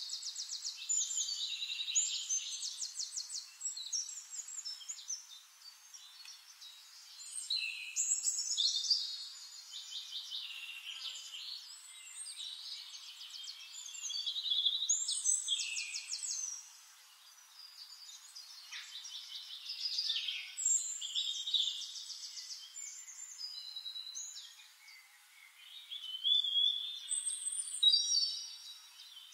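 Birds singing: phrases of high chirps, fast trills and whistled slides, repeating every few seconds.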